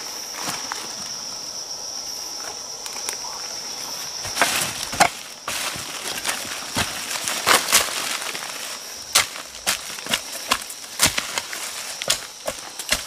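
A hand hoe chopping into soft forest soil, with over a dozen sharp, irregular strikes starting about four seconds in. A steady high-pitched insect buzz runs underneath.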